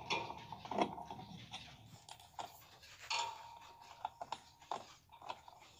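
Scattered faint clicks and rubbing as a hand handles the wiring connections under a lawn tractor's dash, with the engine not running.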